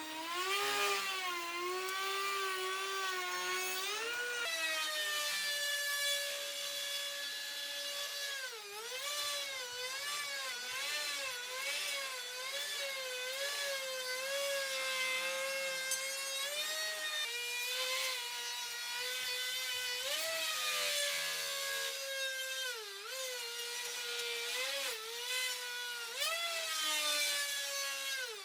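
Electric power tool motor running with a steady whine whose pitch dips and recovers again and again as it bites into wood under load.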